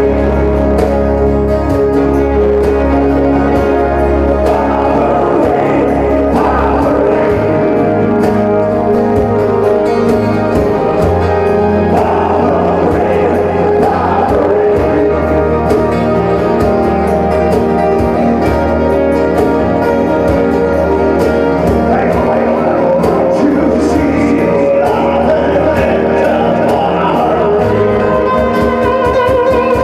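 Live acoustic band playing, with singing over acoustic guitars, keyboard and a cajon, amplified through a PA. Near the end the guitars settle into a steady strummed rhythm.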